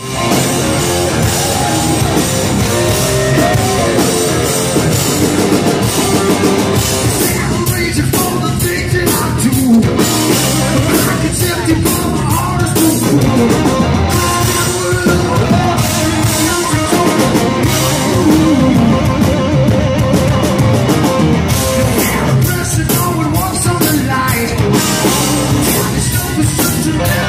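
Live hard rock band playing loud on stage: electric guitars, bass and drum kit, recorded close to the stage from the crowd.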